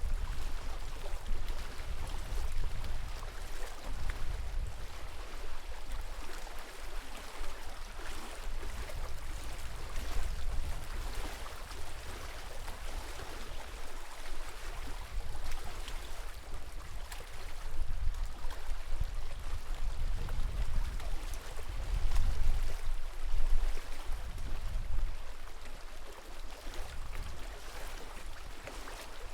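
Lake water lapping and splashing steadily, with wind gusting on the microphone as a low rumble that swells and fades.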